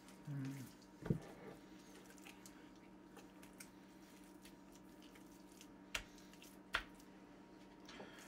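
Raw pork shoulder being handled and turned over on a wooden cutting board: soft wet squishing, with a few sharp knocks as the meat is set down, over a faint steady hum.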